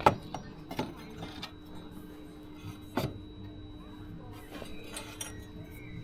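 Scattered knocks and clinks of metal tools being handled, the sharpest right at the start and another about three seconds in, over a steady low hum.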